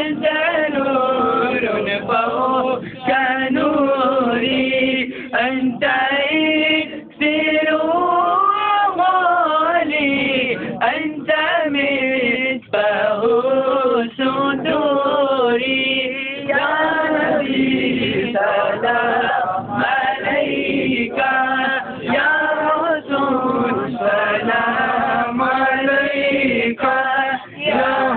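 Group of men's voices chanting devotional verses together, unaccompanied, in a steady unbroken melodic chant typical of a Milad un Nabi gathering.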